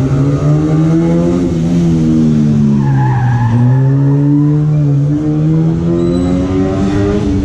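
A car's engine revving hard through a coned course: the pitch climbs, drops sharply about three and a half seconds in, then climbs again. A brief tire squeal comes around three seconds in.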